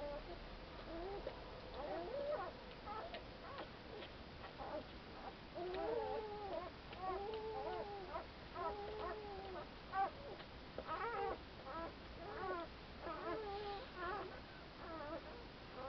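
Newborn Saarloos wolfdog puppies whimpering and squeaking: a run of short cries, each rising and falling in pitch, several a second, thickest through the middle and latter part.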